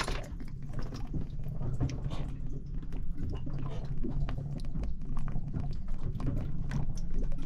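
Irregular small metallic clicks and knocks as the cover plate of a Yanmar raw-water cooling pump is worked loose and lifted off the pump body to get at the impeller, over a steady low hum.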